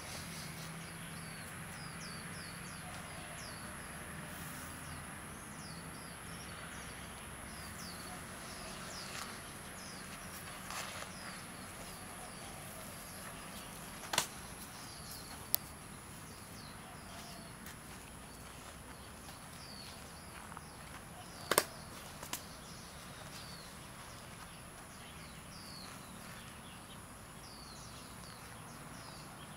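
Outdoor park ambience: small birds chirping over and over above a steady high insect drone. A few sharp clicks cut in, the loudest about halfway and two-thirds through.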